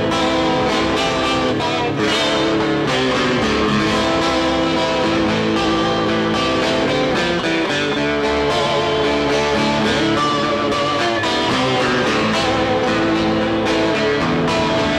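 Live guitar instrumental break between sung verses of a folk-rock song, the guitar playing steadily.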